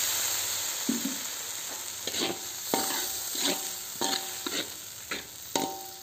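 Sizzling hiss of water just poured into a hot wok of frying chillies and tomatoes, dying away. Over it, a metal spatula stirs the pan, scraping and clinking against the wok with a brief metallic ring, about once or twice a second.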